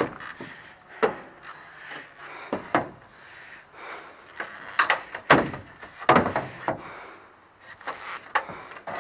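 Scrap metal being handled and loaded: a series of knocks and clanks, some ringing briefly, the loudest about five seconds in.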